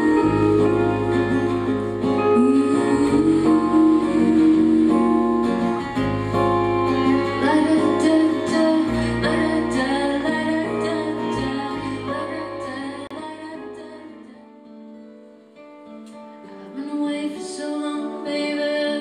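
Live band music: strummed acoustic guitar, bowed violin sliding between notes, and bass, with a woman singing. About fourteen seconds in the bass drops out and the music falls quiet for a moment, then a softer, sparser passage begins.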